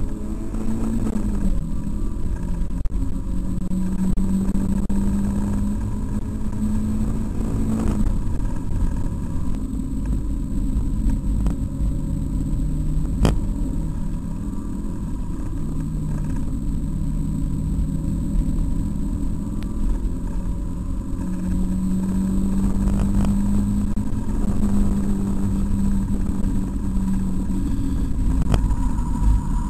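Mazda MX-5's four-cylinder engine heard from inside the cabin at track speed, with a steady rumble beneath it. The engine note climbs, drops about 8 seconds in, runs lower through the middle, then climbs again in the second half; a single sharp click comes about 13 seconds in.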